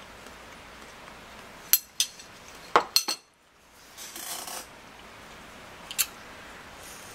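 Metal fork clinking against a ceramic plate: a cluster of sharp clinks about two to three seconds in and a single clink near the end, with a brief rustle between them.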